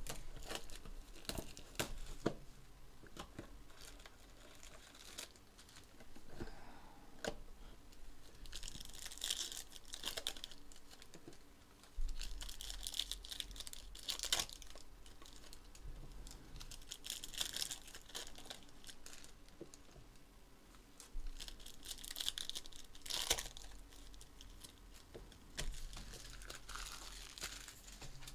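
Foil trading-card pack wrappers being torn open and crinkled in a series of short rips and rustles, with scattered clicks and taps from handling the cardboard box and cards.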